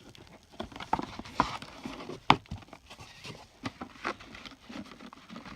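Cardboard packaging and a plastic tool case being handled: scattered clicks, knocks and rustling, with one sharp click a little past two seconds in.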